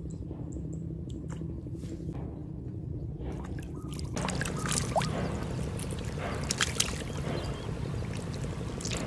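Water splashing and dripping, starting about four seconds in, as a fishing line and float are pulled up out of shallow water, with scattered sharp clicks.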